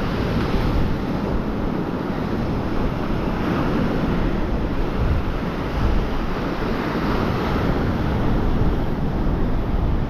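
Surf breaking and washing up on the beach, with wind rumbling on the microphone.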